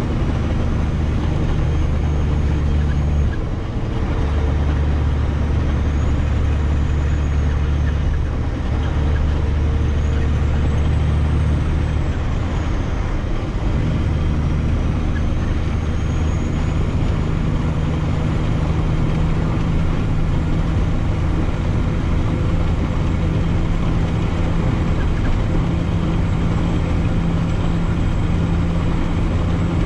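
A semi truck's engine running steadily under way, heard from inside the cab. The engine note dips briefly about three seconds in and changes pitch around thirteen seconds in.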